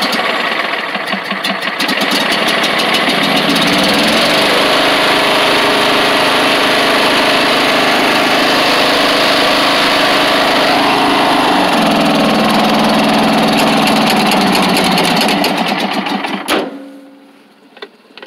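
Riding lawn mower's engine running loudly, its pitch shifting up and down a couple of times, then cutting off suddenly near the end.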